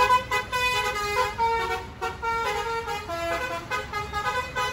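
Tour bus's Basuri telolet horn playing a tune: a quick run of short horn notes that step up and down in pitch every fraction of a second.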